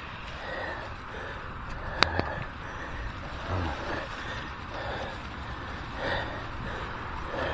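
Mountain bike riding over a slippery, muddy trail: a steady rush of tyre and wind noise, with a sharp click about two seconds in and a few soft bumps.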